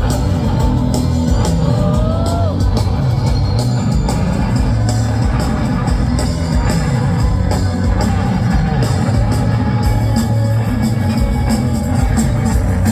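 Live rock band playing an instrumental stretch with a steady drum beat under a heavy bass line, and a short bending tone about a second and a half in.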